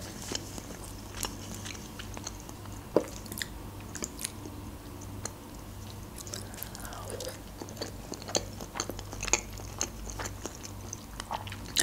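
A person chewing slices of raw trout, with soft wet mouth clicks and smacks scattered throughout.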